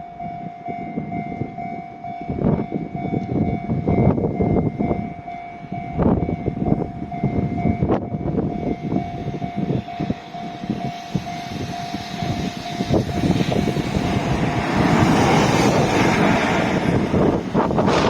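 Freight train passing, with many irregular knocks and a steady high tone that stops about 13 seconds in; a broader rushing noise then grows louder toward the end.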